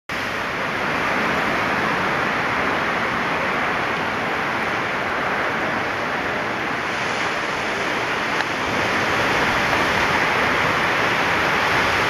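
Heavy ocean surf breaking and washing against the foot of a rock sea cliff: a steady rush of white water that swells a little about two-thirds of the way through.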